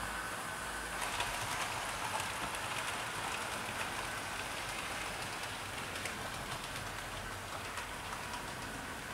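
OO gauge model trains running on track: a steady rolling hiss with a fast patter of small clicks from the wheels running over the rail joints, a little louder from about a second in. The train includes a Hornby Railroad Midland Compound 4-4-0 locomotive hauling coaches.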